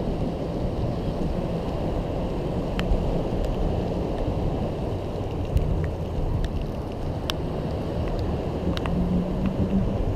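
Steady low rumble of wind on the microphone and road noise from a Xiaomi M365 electric scooter riding over paving, with scattered sharp clicks and rattles.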